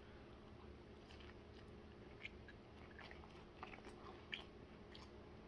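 Faint chewing of a mouthful of fried chicken sandwich, with soft scattered mouth clicks over a low room hum.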